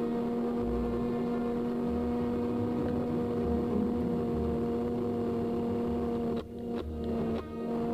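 Steady humming drone with a clear pitched tone, dropping out briefly twice near the end.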